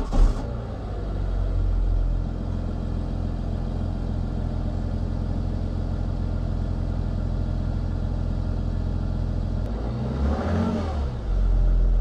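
2015 BMW X5 35d's N57 3.0-litre inline-six turbodiesel on its stock exhaust, still fitted with the DPF, heard at the tailpipe. It catches with a surge just after starting, then settles to a steady idle. About ten seconds in the revs rise and fall, and they are held higher and louder near the end.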